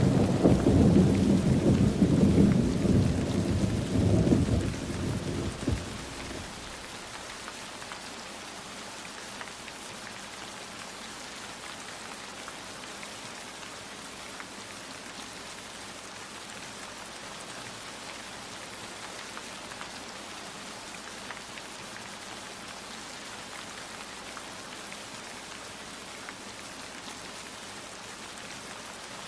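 A roll of thunder rumbling loudly and dying away over about the first six seconds, then steady rain falling without a break.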